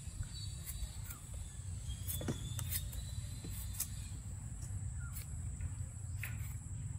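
A knife shaving the skin off a firm green mango in short, irregular scraping strokes. Underneath runs a steady low rumble and a thin, steady high whine.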